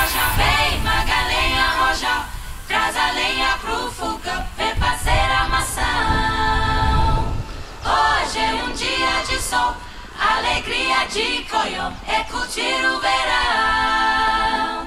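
Background music: a song carried by singing voices, with held and gliding sung notes.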